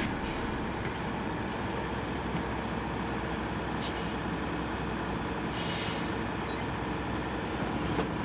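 John Deere 6930 tractor's six-cylinder engine running steadily as its tipped Wielton dump trailer empties sugar beets onto a pile. A few short hisses come about 4 and 6 seconds in.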